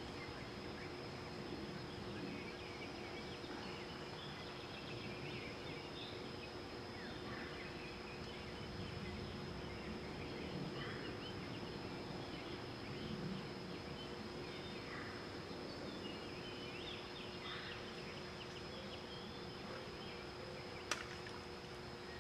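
Outdoor ambience: a steady high insect drone with faint, scattered chirps, and one sharp click about a second before the end.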